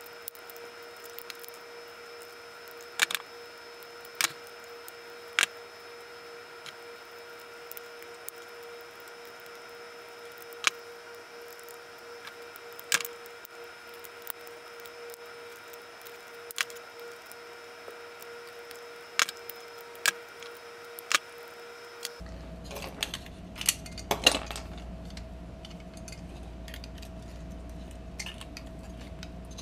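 Sharp, scattered clicks and taps of small hard plastic and metal parts being handled and worked with tools while prying apart the base of an LED bulb. About three-quarters of the way through, the clicks and scrapes become denser and come more quickly.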